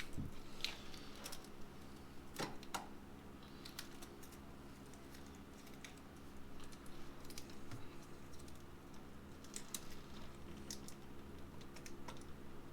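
Faint scattered clicks and light rattles of plastic wiring connectors being handled and plugged back in under a car's hood, over a faint steady hum.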